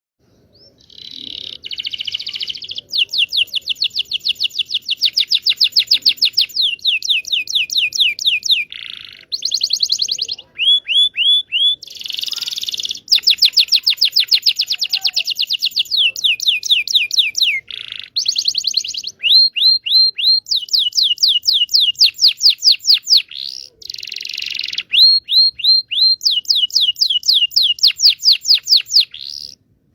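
Local Indonesian canary singing a lure song (pancingan) made for canaries that won't sing and for young birds learning their song. It runs as rolling trills of fast, repeated down-sweeping notes, changing from one trill to the next with short breaks.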